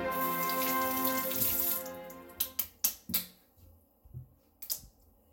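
Kitchen tap running as potatoes are rinsed under it, with background music fading out. The water stops about two seconds in, followed by a few sharp knocks and clacks.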